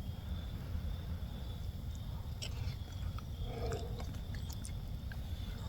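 A person chewing a mouthful of hot pasta, with a few faint clicks and a brief low hum about three and a half seconds in, over a steady low rumble.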